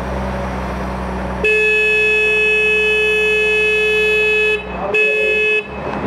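Heavy construction machine's engine running steadily while a machine horn sounds: one long blast of about three seconds starting about one and a half seconds in, then a short blast near the end.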